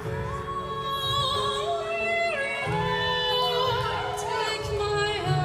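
Live symphonic metal band playing, with a female lead singer singing long held notes with a wavering vibrato over the band's bass and drums.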